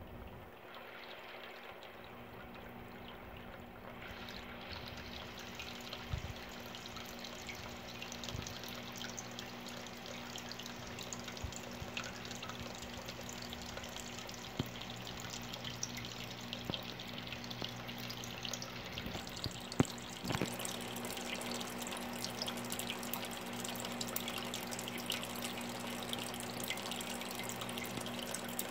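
Aquarium water trickling and dripping steadily, as from a filter outflow, with many small ticks of drops and a low steady hum underneath.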